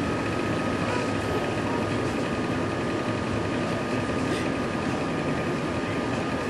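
Steady hum and hiss of background noise with a faint, steady high whine running under it.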